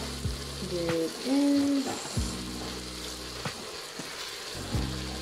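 Sauce sizzling and bubbling in an electric pressure cooker's pot on sauté, with several sharp clicks of metal tongs against the pot as pieces of browned oxtail are dropped back in. A short hummed vocal sound about a second in.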